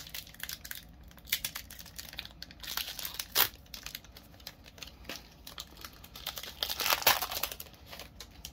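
Foil wrapper of a Pokémon trading-card booster pack crinkling and tearing as it is opened by hand: irregular sharp crackles, loudest about three and a half and seven seconds in.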